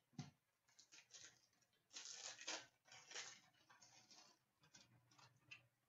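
Faint handling of hockey trading cards: short scrapes and slides of cards being moved through a pack, with two longer slides about two and three seconds in.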